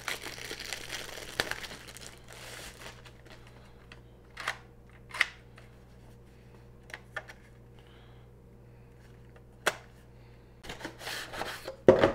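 Clear plastic bag crinkling as a portable cassette recorder is slid out of it, followed by a few separate clicks and knocks from handling the unit. Near the end comes a louder burst of cardboard rustling and knocks.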